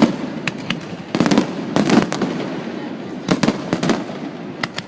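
Fireworks going off: sharp bangs in quick clusters, several groups over a few seconds, each followed by a short rumble.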